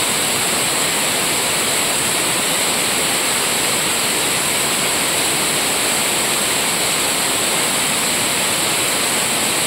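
Water pouring over a river drop in flood, a steady, unbroken rush.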